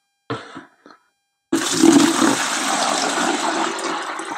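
A drill-driven paint-mixer paddle churning about 4 litres of water in a 5-litre tub. The swirling, churning water starts abruptly about a second and a half in and keeps going steadily.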